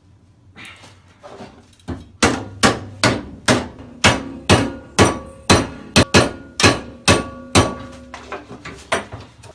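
Hammer blows on a steel sheet-metal patch panel, about two a second with a metallic ring, starting about two seconds in and tapering off near the end: the edge of the patch is being bent over.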